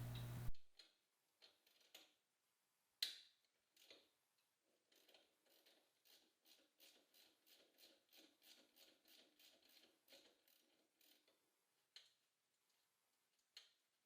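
Faint clicking of a socket ratchet turning a 12 mm bolt on the motorcycle's exhaust clamp or muffler mount: a few single clicks, then a steady run of about three clicks a second that stops about three quarters of the way through.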